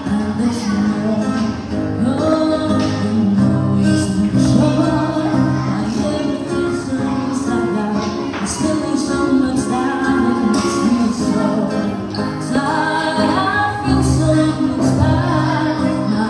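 A woman singing live into a microphone, accompanied by an acoustic guitar.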